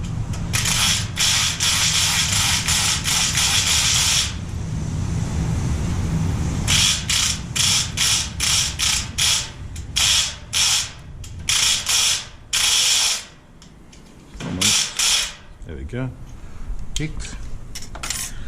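Kronos electric pick gun buzzing against the pins of a Euro cylinder lock: one long burst of about three and a half seconds, then a string of short bursts of about half a second each as the picking is tried again and again.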